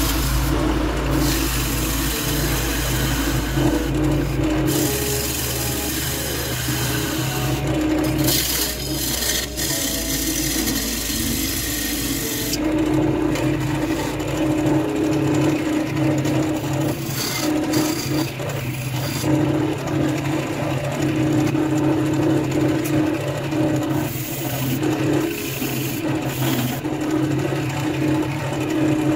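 Wood lathe motor running with a steady hum while a gouge cuts into a spinning cherry goblet blank, the edge scraping and shaving the wood.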